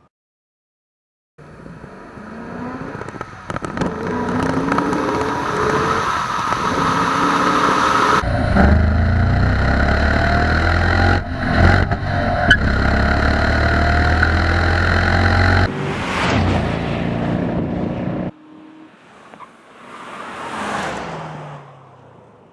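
2015 Dodge Challenger R/T's 5.7-litre Hemi V8 at wide open throttle, its pitch climbing in repeated rises as it pulls up through the gears of the manual gearbox. It starts suddenly after a moment of silence, grows loud with a heavy low rumble through the middle, drops off, swells once more and fades away near the end.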